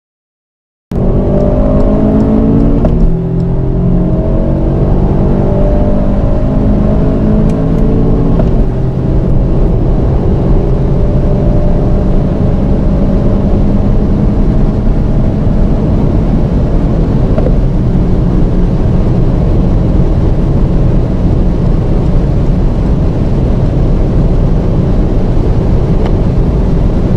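Honda Civic Type R's 320 hp turbocharged 2.0-litre four-cylinder under full-throttle acceleration at high speed, heard from inside the cabin. The engine note climbs slowly and drops back at upshifts into fifth and sixth gear.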